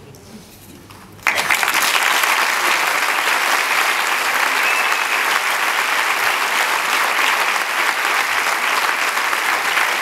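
Theatre audience applauding, breaking out suddenly just over a second in and then going on steadily.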